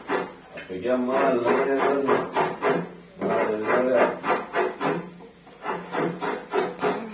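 Rhythmic rasping strokes, about three or four a second, like something being scraped or scrubbed by hand.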